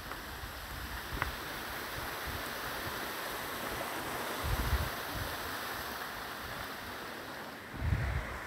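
Steady rushing of a mountain stream flowing over rocks, with low wind buffets on the microphone about four and a half seconds in and again near the end.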